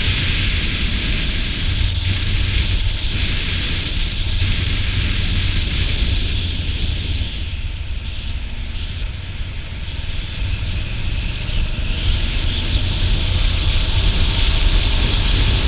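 Wind rushing over the microphone of a camera on a moving motorbike, with a low steady rumble from the bike and road underneath. It eases a little about halfway through and builds again near the end.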